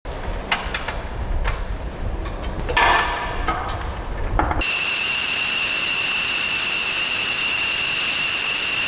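Outdoor rumble with several sharp knocks and clanks. About halfway in, it cuts to a steady hiss with a high, unchanging whine, as from a jet engine running.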